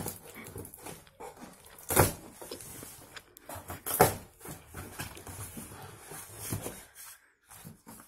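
Cardboard shipping carton being opened by hand: packing tape peeled off and cardboard flaps scraped and pulled open. There are two loud rips, about two and four seconds in.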